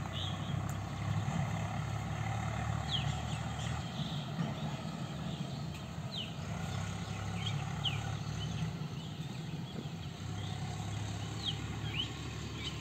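A steady low hum, with short bird chirps now and then.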